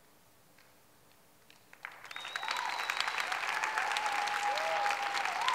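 Near silence, then an audience breaks into applause about two seconds in, starting with a few scattered claps. A few long held cheers sound over the clapping.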